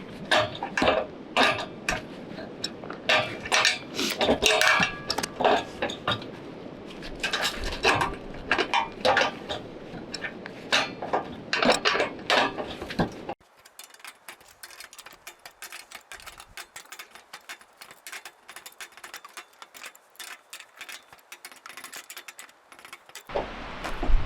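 Metal parts of a portable sawmill clinking and clanking as they are handled and fitted together. About thirteen seconds in the sound drops abruptly to faint, scattered ticks, and near the end wind starts rumbling on the microphone.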